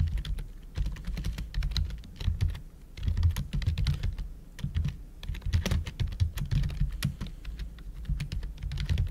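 Typing on a computer keyboard: a quick, irregular run of key clicks with brief pauses between words.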